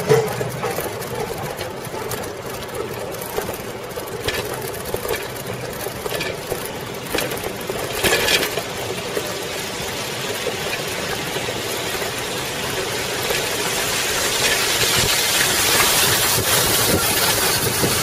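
Riding noise from cameras mounted on a Coker Monster Cruiser bicycle: a steady mechanical whir and rattle from the chain and big 36-inch tyres rolling over paving, with a few knocks. Wind noise on the microphone grows louder near the end.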